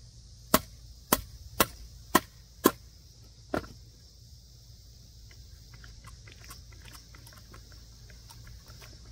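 Hammer blows driving a nail into a wooden board: six sharp strikes about half a second apart, the last after a slightly longer gap, then only faint light tapping.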